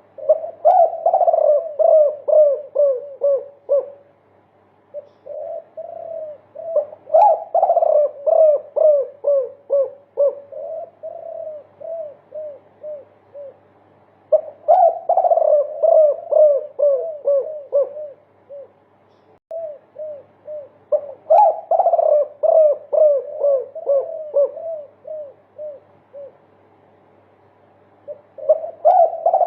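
Derkuku doves cooing long multi-note 'multikuk' songs: phrases of quick repeated coo notes, several a second, each phrase lasting a few seconds and starting again after a short pause.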